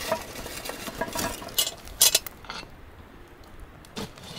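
Charcoal briquettes clinking and scraping as they are tipped from a shovel onto the lid of a cast-iron Dutch oven, with several sharp clatters and a short quieter pause near the middle.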